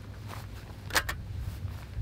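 A single sharp clack about a second in as a small folding camp table is set down, with footsteps on sand and a low steady rumble beneath.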